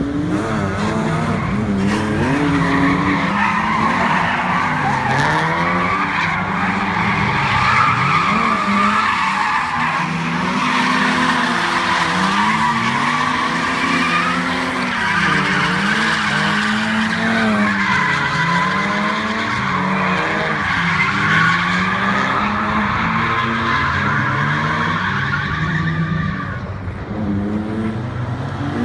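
Drift cars running in a line around a course, engines revving up and down as the drivers work the throttle, with continuous tyre squeal. The squeal and engines ease briefly near the end.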